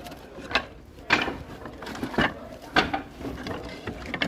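Repeated short knocks and scrapes of hand work with wood, about two a second, with no saw running.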